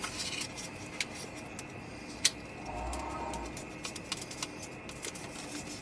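Card stock being handled, with a few sharp paper taps and rustles, the loudest a little over two seconds in. A soft, low, cooing call lasts about a second near the middle.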